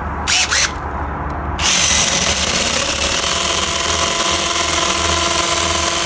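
Cordless drill boring into a brick wall, enlarging pre-drilled pilot holes to full size. It gives a couple of short bursts in the first second, then drills steadily with a constant whine from about a second and a half in.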